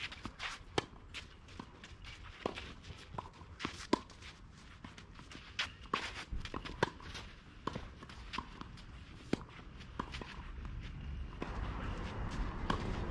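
Footsteps and shoe scuffs on a clay tennis court: irregular sharp ticks, one or two a second. A low rumble rises near the end.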